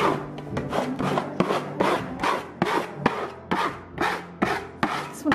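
Hand scraper scraping mould off a painted wall in quick, repeated strokes, about three or four a second.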